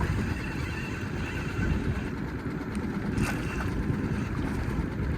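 Small boat's motor running steadily while trolling, under a low rumble of wind on the microphone, with a faint steady whine and a brief click about three seconds in.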